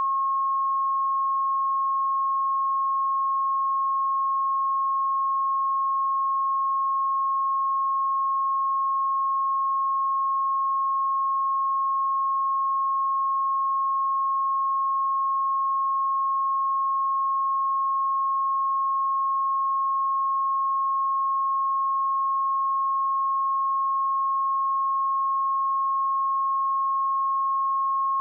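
A pure 1083 Hz sine-wave test tone, held steady at one pitch and level with nothing else present.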